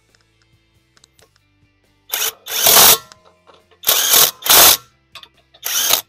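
Cordless 20-volt half-inch impact wrench, set to its highest setting, hammering lug nuts tight through an 80 ft-lb torque stick. It starts about two seconds in and goes in short bursts, roughly in pairs: a brief blip, then a longer burst of hammering, repeated nut after nut.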